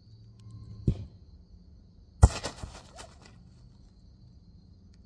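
A soccer ball strikes a pop-up goal's net right by the microphone, a sharp hit followed by about a second of net and frame rattling; a fainter thump comes about a second and a half before it.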